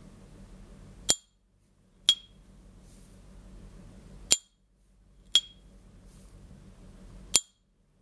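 S.T. Dupont Ligne Gatsby lighter's two-tone gold and silver lid snapped open and shut, five sharp metallic clicks a second or two apart, each with a brief high ringing ping.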